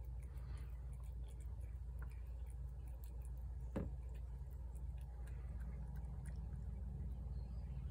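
Domestic cat eating wet food from a plate: faint, irregular chewing clicks over a steady low hum, with one sharper click about four seconds in.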